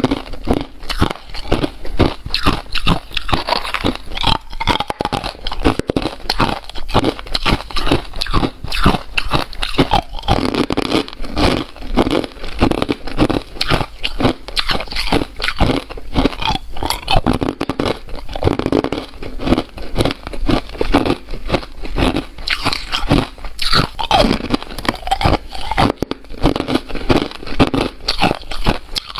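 Ice being bitten and chewed close to the microphone: a dense, unbroken run of crunches and crackles as the ice breaks between the teeth.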